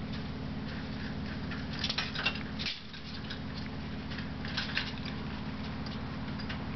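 Cats playing with cords and small household objects: scattered light tapping and rattling clicks in two flurries, about two seconds in and again around four and a half seconds, over a steady low hum.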